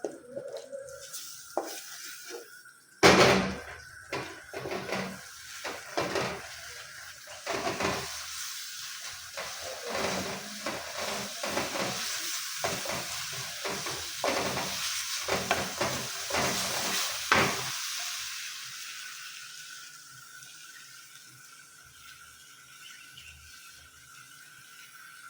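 A spoon stirring and knocking against a cooking pot while the onion, tomato and bell pepper sauce sizzles. The stirring and clatter stop about two-thirds of the way through, leaving a softer sizzle on low heat.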